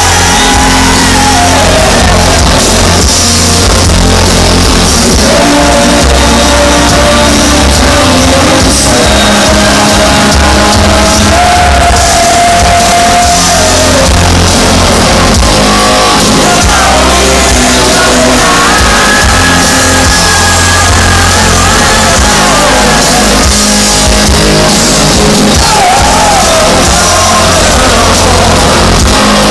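Live rock band playing electric guitars, bass and drums at a concert, heard from within the crowd, very loud and steady, with a held, bending melody line over the band.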